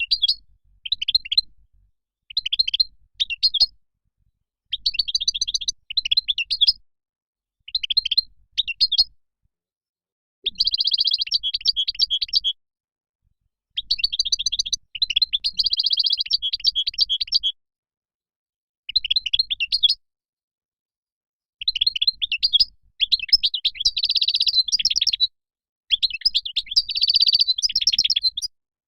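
European goldfinch song: phrases of fast, liquid twittering and trills, each half a second to a couple of seconds long, with short pauses between them.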